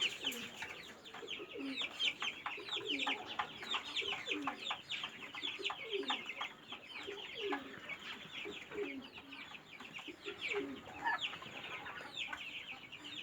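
A brood of young naked-neck chickens peeping continuously, many quick downward-sliding high peeps overlapping, with lower clucking notes mixed in.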